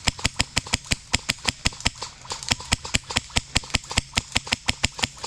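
Airsoft gun firing in rapid, automatic bursts, a quick even rattle of sharp shots at about eight to ten a second, easing briefly about two seconds in.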